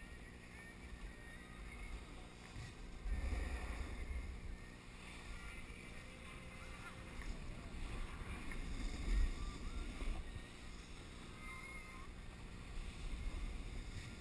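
Outdoor ambience on a ski slope: low rumble of wind on the microphone, swelling a few times, with faint distant voices.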